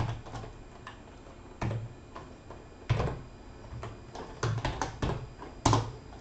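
Computer keyboard being typed on: single key clicks at irregular intervals with pauses between, becoming a quicker run of keystrokes in the later part.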